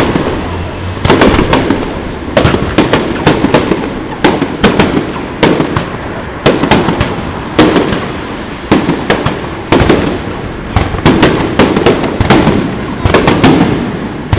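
Aerial fireworks shells bursting in an irregular run of sharp bangs, one to three a second, each trailing off before the next.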